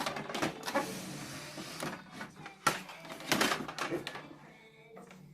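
Irregular plastic clicks, knocks and whirring from an Epson XP-4105 inkjet printer being set up. The sharpest knocks come just under three seconds in and again a little later, and the sound dies down near the end.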